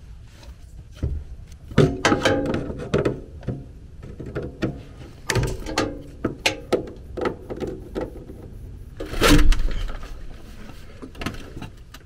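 Hand work on a furnace's sheet-metal blower housing: irregular metal clicks, scrapes and knocks from tools and the housing being handled, with one loud bump about nine seconds in.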